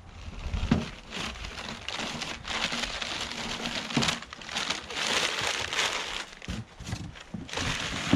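Brown kraft packing paper being pulled out of a cardboard shipping box and crumpled, a continuous crackling rustle with a few light knocks of handling.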